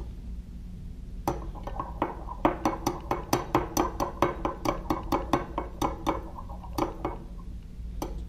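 A metal utensil clinking rapidly against the sides of a glass measuring cup, about four strikes a second, as black colorant is stirred into hot liquid plastisol. It starts about a second in, runs for about five seconds, and ends with two single clinks near the end.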